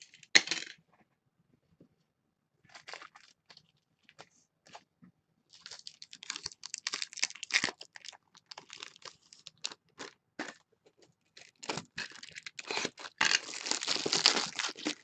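Plastic shrink wrap being torn and crinkled off a trading card box, in irregular crackles that grow dense near the end. A brief, loud rustle comes just after the start.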